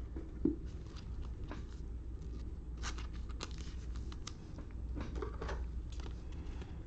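Trading cards and a rigid plastic card holder being handled: faint scattered clicks, slides and rustles of card stock and plastic, over a steady low hum.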